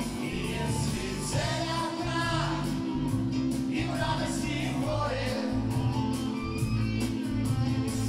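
Live rock band playing a song with singing, electric guitars, drums and keyboard.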